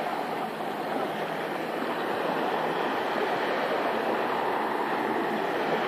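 Small sea waves breaking and washing up a sand-and-pebble beach: a steady rush of surf.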